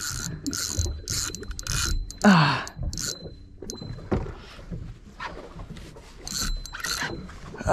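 Irregular knocks and rustles from a phone camera being handled aboard a boat, with a man's short grunt about two seconds in.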